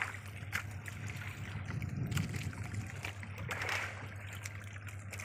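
Water lapping and trickling against the hull of a small boat at sea, in uneven swells, over a steady low hum.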